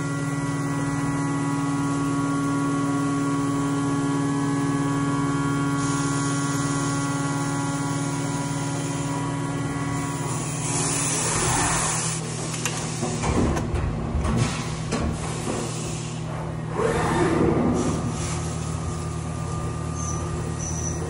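Haas CNC vertical milling machine cutting a metal part with an end mill under flood coolant: a steady spindle whine made of several pitched tones. About halfway through the tone changes and rougher, noisier cutting and spray sounds swell up a few times before a steadier tone returns.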